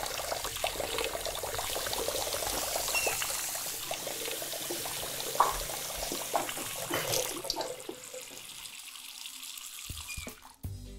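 Several taps running into sinks, a steady splashing rush of water, with a brief sharp knock a little after halfway; the water grows quieter near the end.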